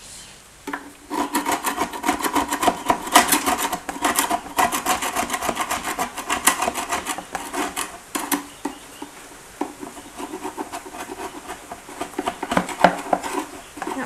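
Metal paint scraper scraping hardened old propolis off the inside walls of a wooden deep hive box, in quick repeated rasping strokes that start about a second in. The strokes ease off briefly past the middle, then grow louder again near the end.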